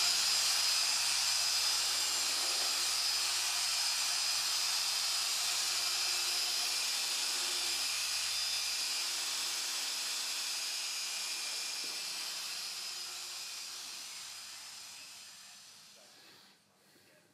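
Small right-angle spot polisher spinning a small pad on car paint: a steady, high-pitched whir that fades over the last few seconds and stops shortly before the end.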